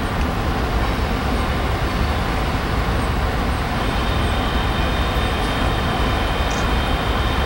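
Diesel freight locomotives approaching slowly, a steady low rumble of engines and train. A faint high-pitched steady tone joins about four seconds in.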